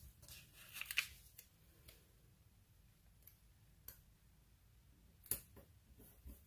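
Faint crackle of a small paper sticker being peeled off its backing sheet, then a few light clicks and taps as it is laid and pressed down onto a paper planner page.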